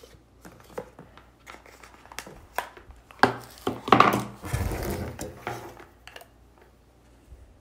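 Apple Pencil's cardboard packaging being slid open and handled on a wooden table: scattered light taps, knocks and rubs, with a louder rustle and knock about three to four seconds in.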